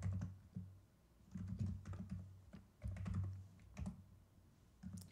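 Computer keyboard typing, the keystrokes clicking in short runs with brief pauses between them.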